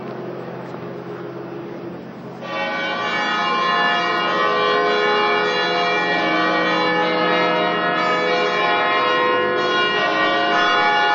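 Church bells ringing, many overlapping tones sounding on; a new round of strikes comes in about two and a half seconds in and the ringing grows louder.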